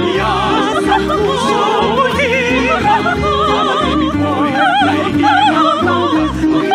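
Several voices singing together in operatic style with heavy vibrato, over an accompaniment with a rhythmic low bass pulse.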